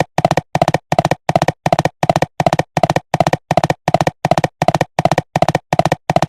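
Cartoon galloping sound effect: hoofbeats in quick groups of several clops, repeating evenly about three times a second in a steady loop.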